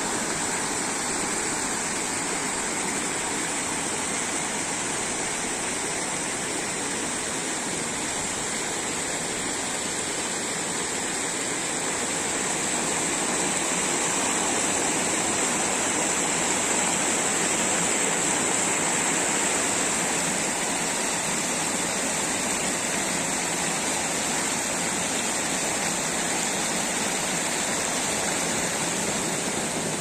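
Steady rush of a mountain waterfall and the stream pouring down its rock chute, running full with snowmelt, swelling a little midway.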